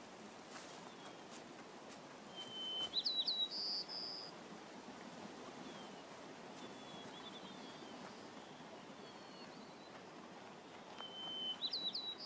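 A songbird sings the same short phrase twice, about nine seconds apart: a steady note, then a quick run of rising and falling notes, then a higher held note. Fainter chirps come in between, over a soft, steady outdoor hiss.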